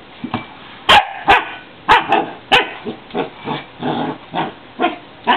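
A husky barking and yipping, more than a dozen short calls in quick succession, while nosing at its water bowl, with a few sharp knocks of the bowl against the floor.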